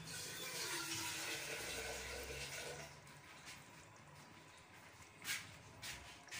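Water pouring into a cooking pot over a whole chicken, a steady rush for about three seconds that then dies away. This is the water being added to braise the chicken. A sharp knock follows about five seconds in.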